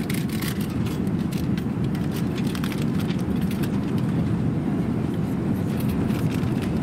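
Steady low rumble of an Airbus A380 airliner cabin in cruise, with scattered light clicks and rustles of handling; the paper menu is picked up near the end.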